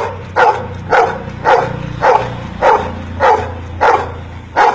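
Golden retriever barking a string of single barks at an even pace, a little under two a second, counting out the number ten on command.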